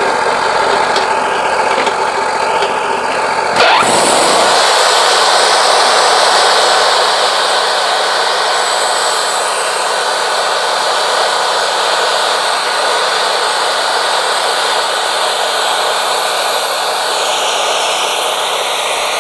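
Wood-Mizer LT40 Wide sawmill running, its band blade sawing through a knotty yellow pine cant at a slow feed. A sharp click comes just under four seconds in; after it the low engine hum falls away and a steady sawing hiss takes over.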